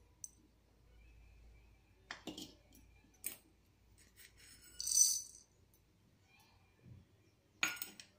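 Dry coriander seeds dropped into an empty metal kadai, rattling and clinking on the metal, in four short bursts, the loudest and most ringing about five seconds in.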